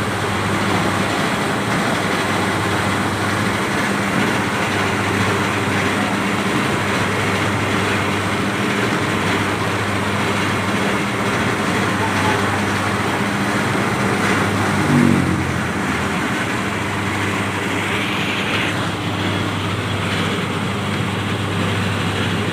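Coconut coir processing machine running with a steady mechanical hum and noise. About fifteen seconds in, a brief rising pitched sound rides over it.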